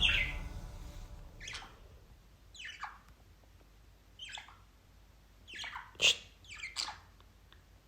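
A budgerigar giving a series of short calls that each sweep down in pitch, about six of them at irregular intervals, the loudest about six seconds in. They are the calls of a budgie left alone.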